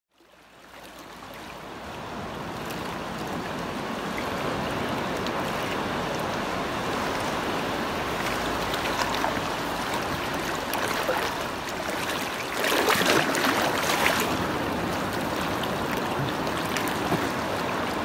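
Sea waves washing and lapping among shoreline rocks, a steady rushing that fades in over the first couple of seconds, with a louder wave splash about thirteen seconds in.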